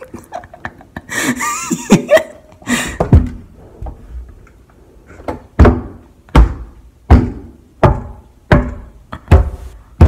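Fist pounding on a room door, heard from the inside: a few scattered knocks, then a steady run of heavy thumps about one every three-quarters of a second.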